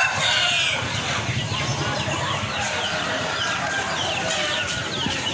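Chickens and many caged birds at a bird market: clucking and a dense scatter of short chirps over the murmur of a crowd. A rooster's crow ends in the first second.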